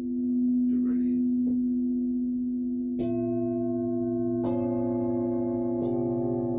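Singing bowls ringing in steady, overlapping tones. Bowls are struck three times, about halfway through, a second and a half later and again near the end, each strike adding new tones that ring on over the rest.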